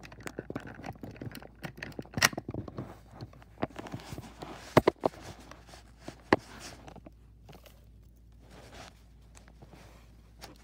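Handling noise from a plastic Buzz Lightyear action figure being moved about in the hands close to the microphone: scattered clicks, knocks and scraping, with a few sharp clicks around the middle, then quieter rustling in the last few seconds.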